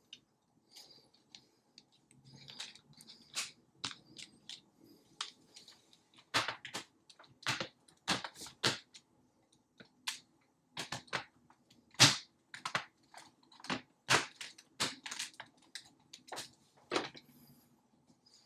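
Irregular sharp clicks and knocks of hard plastic being handled: Nanoleaf Shapes triangle light panels and their parts being fitted together, with a single loudest knock about twelve seconds in.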